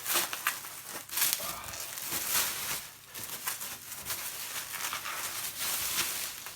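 Packaging being unwrapped by hand: plastic or paper wrapping crinkling and rustling, with irregular sharp crackles and tearing.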